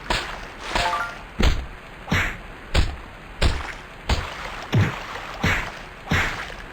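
A person sneezing over and over in quick succession: about ten sharp sneezes, roughly one every two-thirds of a second, each a sudden burst that trails off.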